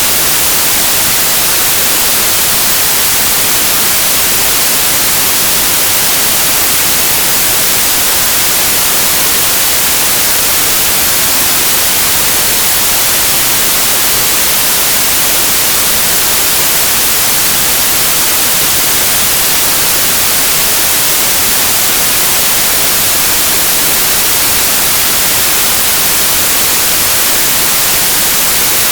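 Steady, uninterrupted white noise: an even hiss with no changes, strongest in the treble.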